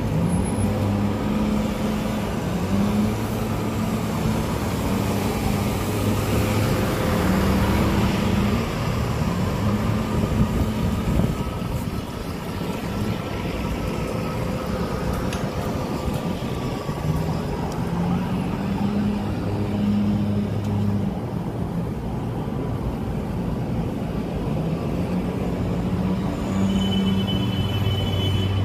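Street traffic: cars and other vehicles driving past on a snow-covered road, a steady hiss of tyres with low engine hum that swells and fades as vehicles pass.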